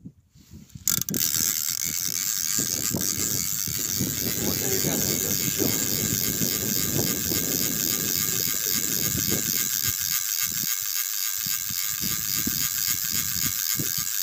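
Spinning reel being cranked steadily, its gears whirring with a fast, fine ticking, as a hooked fish is wound in on a bent feeder rod. The reeling starts about a second in.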